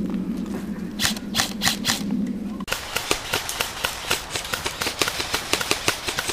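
Airsoft electric rifles firing single shots in quick succession, each a sharp snap, about four a second from about three seconds in. Before that, a steady low hum with a few scattered snaps.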